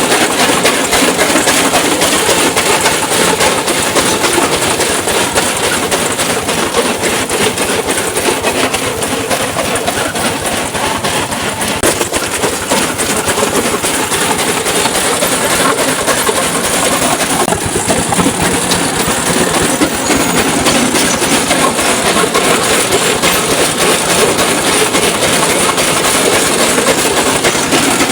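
Brick crushing machine running, with a dense, continuous clattering rattle as bricks are broken up.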